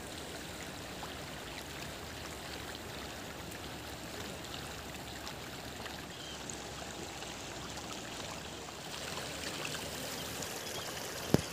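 Steady rush of flowing river water, with one sharp click near the end.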